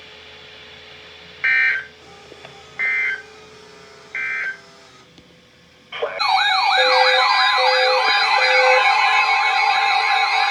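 Three short, loud digital data bursts of the EAS/SAME signal, about a second and a half apart: the end-of-message code closing a weather radio alert. From about six seconds in, a loud alert alarm sounds: repeated sweeping siren-like tones over a steady tone, with three short low beeps.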